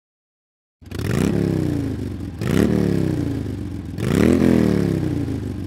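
Harley-Davidson Sportster 1200's air-cooled Evolution V-twin engine running and revved three times, each rev rising quickly in pitch and falling back slowly. It starts about a second in.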